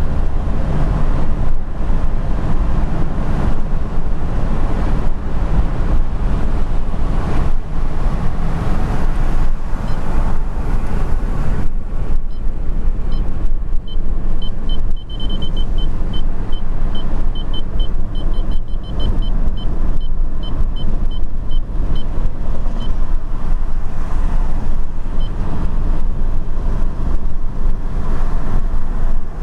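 Road and engine noise heard from inside a car cruising on a highway: a steady low rumble. For several seconds midway it carries a run of faint, high ticks.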